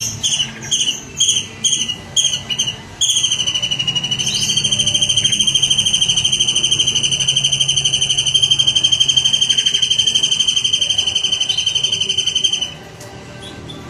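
A songbird's recorded song of the kind played as 'masteran' to train cage birds: a quick run of short, sharp whistled notes, then one long, fast trill held on a steady pitch for about ten seconds, stopping shortly before the end.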